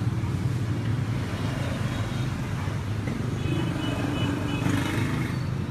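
Street traffic noise: a steady low rumble of passing vehicle engines.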